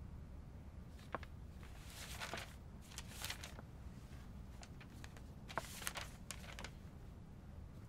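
Faint low room hum with scattered soft clicks and short rustles.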